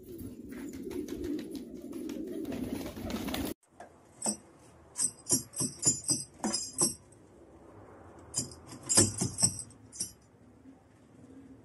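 Domestic pigeons cooing in a dense, low murmur that cuts off abruptly about three and a half seconds in. After that come two runs of sharp clicks with a jingling ring, each a couple of seconds long.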